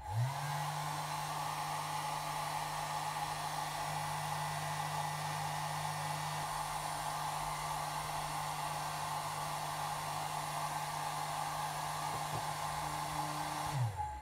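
Handheld hair dryer switched on, its motor spinning up quickly and then running steadily with a low hum and a rush of air while it warms a vinyl phone skin to make it pliable. It is switched off near the end, the hum falling away as the motor winds down.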